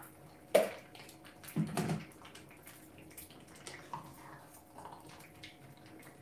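Wooden spatula stirring thick egusi soup in a pot, with wet squelching and small clicks against the pot. There is a sharp knock about half a second in, a heavier clatter a second later, and a faint steady hum underneath.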